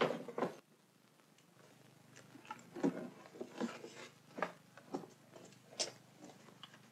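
Soft, irregular footsteps and small knocks at school desks as people move about a classroom: about ten light thumps, spread unevenly from about two seconds in, over a steady low hum.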